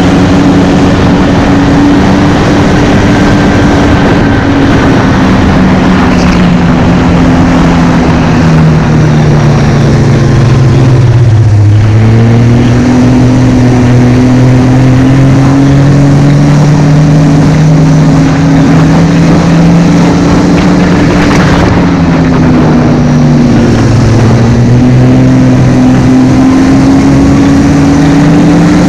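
Snowmobile engine running at speed along a groomed trail. Its pitch drops as it slows about a third of the way in, climbs again, and dips once more a little past two-thirds of the way.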